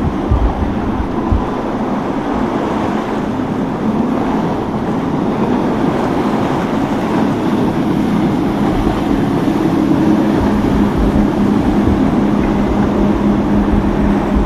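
Motorboat engines running steadily, their hum growing louder in the second half, over a constant rush of water, with low gusts of wind buffeting the microphone.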